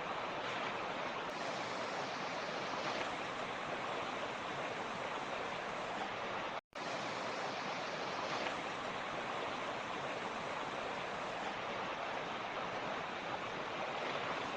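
Mountain stream rushing steadily over rocks, an even continuous water noise. The sound cuts out completely for a split second about halfway through, then carries on unchanged.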